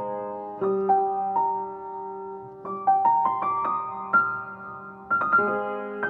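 Solo piano playing a slow, gentle arpeggiated melody, notes ringing on under the sustain and fading between phrases.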